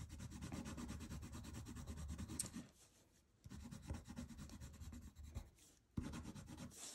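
Green colored pencil shading on paper: faint, quick back-and-forth strokes that stop briefly about three seconds in and again near the end.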